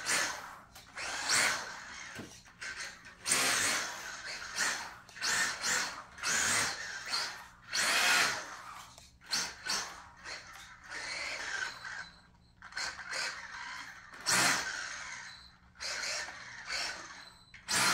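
Brushless electric motor and drivetrain of a Losi Mini-T 2.0 1/18 scale RC truck whirring in many short bursts as the throttle is blipped on and off, with its tyres running on a bare concrete floor.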